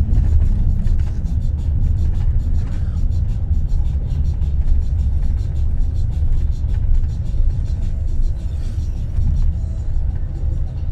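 Steady low rumble of a moving road vehicle heard from inside the cabin: engine and tyre noise.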